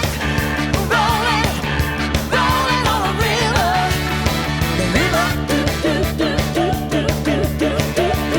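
Rock song with a singing voice over guitar, bass and drums.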